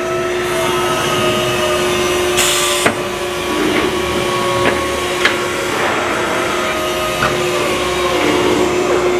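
Hydraulic tightening gun of a clamp carrier running steadily, driving the clamp screws tight, with the steady hum of the hydraulic unit under it. A short hiss comes about two and a half seconds in, and there are a few sharp clicks as the gun works along.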